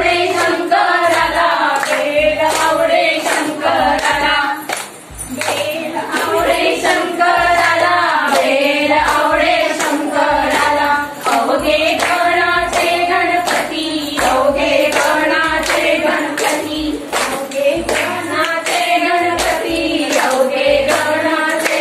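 A group of women singing a folk song together, with hand claps keeping a steady beat.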